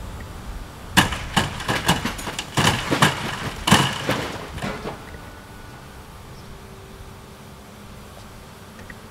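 Building demolition by excavator: a run of crashes and clattering debris lasting about four seconds, bricks and building material being broken and falling. It then settles to a quieter steady background.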